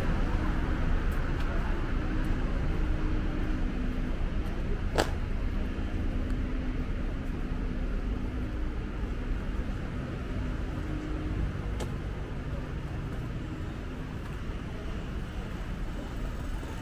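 City street traffic: cars driving past with a steady low rumble and an engine hum, and a sharp click about five seconds in.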